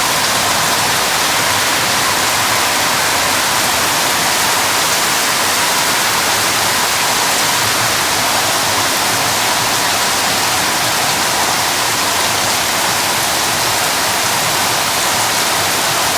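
Heavy rain falling hard, a loud, steady, even hiss with no let-up.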